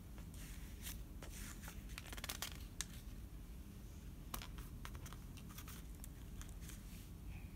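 A page of a hardcover picture book being handled and turned over: faint paper rustling with scattered small crackles and clicks, a few sharper ones about a second and four seconds in.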